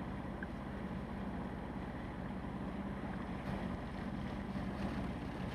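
A sailing yacht's inboard engine running steadily as the boat motors along, a low even drone with a faint hiss over it.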